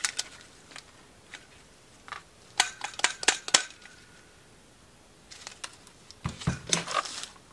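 Small metal clicks and clinks as a new aftermarket CV carburetor's choke nut is worked loose and the carburetor handled, in two clusters, with a dull thud near the end as it is set down on the workbench.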